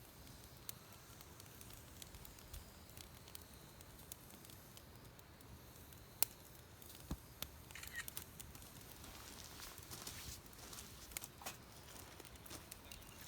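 Faint campfire of firewood logs crackling, with scattered sharp pops; the loudest pop comes about six seconds in, and a few more follow over the next couple of seconds.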